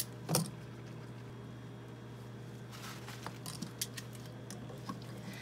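Metal parts of a cryostat's specimen holder being handled by gloved hands: a knock about half a second in, a brief hiss around three seconds, and scattered light clicks, over a steady low hum.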